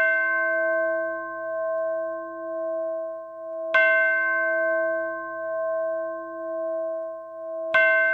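A bell struck at a slow, even pace, about every four seconds, each stroke ringing on with a slow wavering throb until the next.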